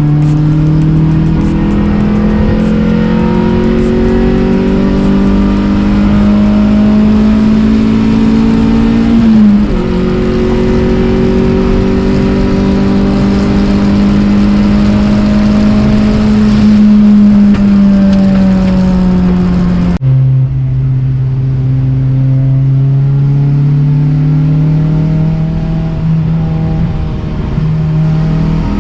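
Honda VTEC engine of a wagon under way, its pitch rising slowly as it accelerates, dropping suddenly at an upshift about nine seconds in, then holding steady. About twenty seconds in the sound cuts abruptly to a lower engine note that sags and then climbs again.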